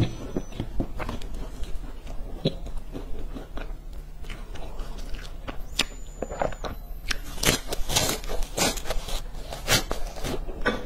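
Close-miked biting and chewing of crunchy coated stick snacks: a run of sharp crunches that comes thick and loud in the second half.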